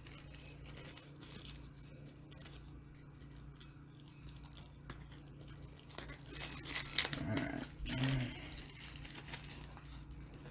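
Clear plastic packaging being crinkled and pulled open by hand to free a webcam's USB cable. Faint crackling that grows louder and busier about two-thirds of the way through.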